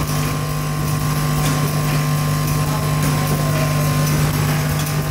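An automatic machine for cutting and forming through-hole electronic components, running: a steady mechanical hum at a constant pitch, with a higher whine that fades out about four seconds in.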